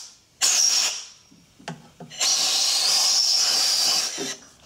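Compressed-air blow gun blasting metal filings and cutting fluid out of a freshly tapped thread hole in an aluminium water pump housing. It gives a short hiss about half a second in, then a long hiss of about two seconds, with small clicks between.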